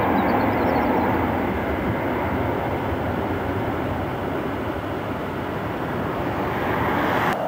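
Jet noise from a Boeing 747's four engines at climb power as it pulls away after a touch-and-go: a loud, even rush that eases slightly, then cuts off abruptly near the end.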